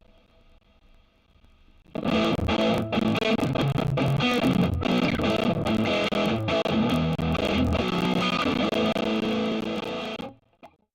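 Electric guitar played through a Mooer Solo high-gain distortion pedal: a busy run of distorted riffs and notes that starts about two seconds in and stops suddenly near the end, after a faint amp hum at the start.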